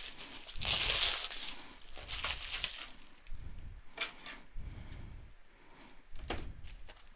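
Plastic packaging crinkling and tearing as a package is opened by hand, with a few sharp clicks along the way.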